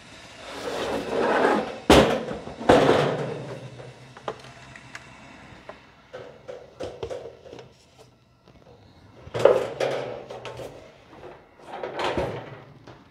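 A galvanized steel dust-collector bin and its separator lid being handled: clanks, knocks and scraping of metal, with two sharp knocks about two and three seconds in and another a little before the end.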